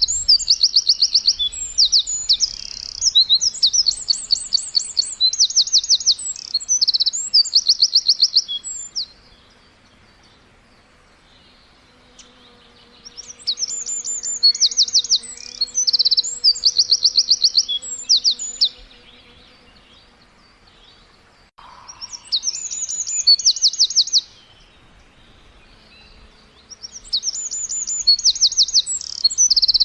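Small birds chirping in fast trills of repeated high notes, coming in bouts of several seconds with quieter pauses between.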